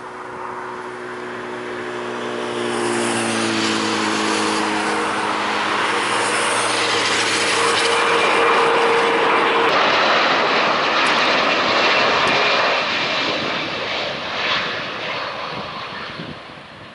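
Airbus A330-200 airliner's twin jet engines on final approach, swelling in level as it comes close, with several engine whine tones sliding down in pitch as it passes. The jet noise stays loud, then fades near the end as the aircraft flares over the runway.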